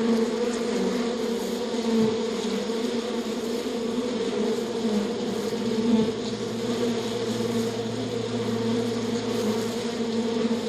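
Steady buzzing drone of flying insects.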